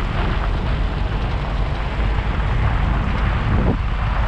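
Pickup truck driving on a gravel road: steady engine and tyre rumble on the gravel.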